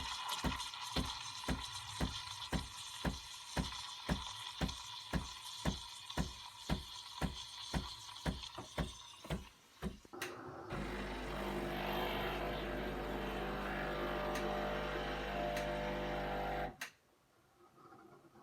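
Breville Barista Express espresso machine's vibratory pump pulsing about two and a half times a second during pre-infusion, then running with a steady hum for about six seconds at full pressure. It cuts off suddenly near the end.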